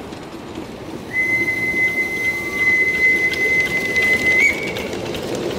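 Live-steam 5-inch-gauge model locomotive blowing its steam whistle: one steady high note held for about three and a half seconds that steps up slightly just before it stops. Under it, the hiss and clicking of the locomotive running past close by grow louder.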